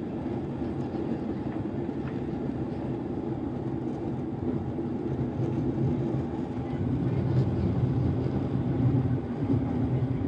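Steady cabin noise of a Boeing 737 airliner climbing after takeoff: a low rumble of jet engines and rushing air, growing a little louder past halfway.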